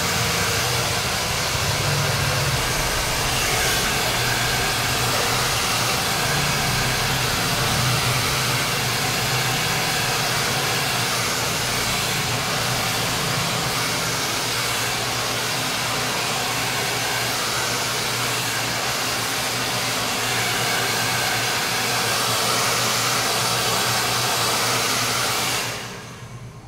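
Handheld hair dryer blowing steadily on a client's hair, cutting off sharply near the end as it is switched off.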